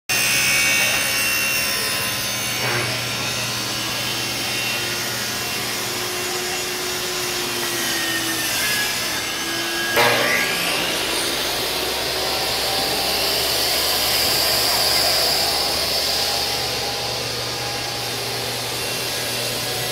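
Table saw running and cutting wood: steady, loud machine noise with a low hum underneath and a brief sharp sound about halfway through.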